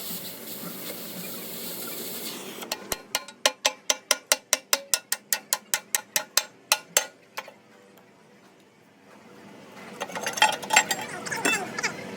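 A steady hiss, then a run of about fifteen sharp metal strikes at a steady three to four a second, then after a short pause an irregular metallic clatter near the end.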